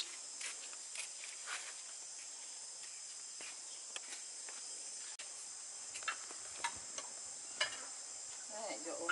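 Steady high-pitched chirring of insects, with a few light taps and clicks over it, the sharpest about six to eight seconds in.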